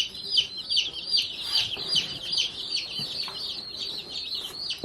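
Many baby chicks peeping together: a constant chorus of short, high, overlapping chirps.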